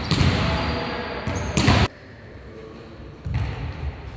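Volleyballs being hit and striking the floor of a sports hall: a few sharp smacks, the loudest about one and a half seconds in.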